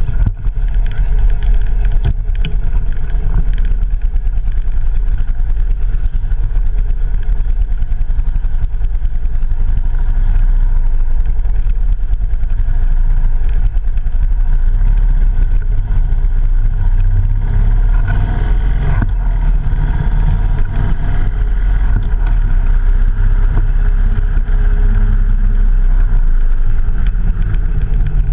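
Motorcycle riding along, its engine running steadily, picked up by an action camera on the handlebars with heavy low rumble of wind on the microphone.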